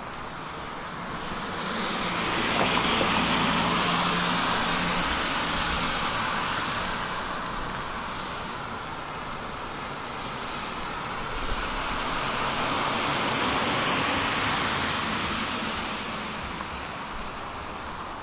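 Road traffic passing on a city street: two vehicles go by in turn, each a rush of noise that swells and fades over several seconds, the first a few seconds in and the second later on.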